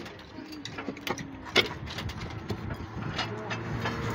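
A truck's drum-brake shoe being handled and fitted by hand: a few sharp metal clinks and knocks, the loudest about a second and a half in.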